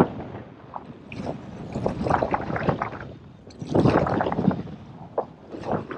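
Water splashing and gurgling as a small sea trout is let go by hand in shallow sea water, in irregular bursts, loudest a little before the middle and again about four seconds in. Wind buffets the microphone.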